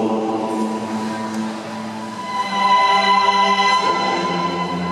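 Orchestral program music for a figure skating short program, long held notes that swell louder about two and a half seconds in.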